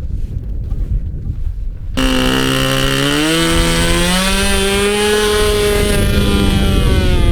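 Model airplane motor and propeller running, starting abruptly about two seconds in and rising in pitch as the throttle opens, then holding steady. Before it there is only a low rumble of wind on the microphone.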